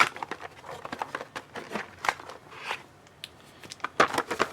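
Trading card packaging being opened and handled: plastic and foil wrappers and cardboard crinkling and crackling in a run of sharp clicks and rustles, coming in clusters near the start, about two seconds in, and again about four seconds in.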